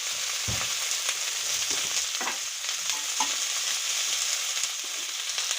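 Carrot and cabbage sizzling in hot oil in a large kadai as they are stirred, with a few scrapes and knocks against the pan.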